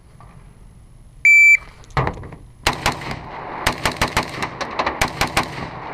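An electronic shot timer sounds a short, steady high beep about a second in as the start signal. Then, from about two and a half seconds in, a rifle fires a rapid string of shots, several of them close together.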